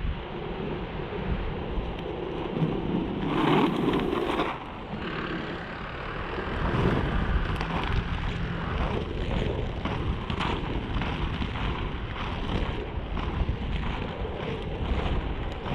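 FR325 inline skates rolling over rough asphalt: a steady rumble from the wheels with frequent small ticks, and wind buffeting the microphone. A louder rush about three to four seconds in.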